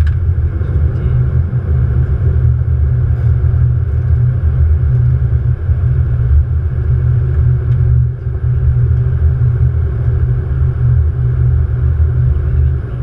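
Steady, loud low rumble of airflow and engine noise on the flight deck of a Boeing 777 descending on approach, with a faint steady hum above it.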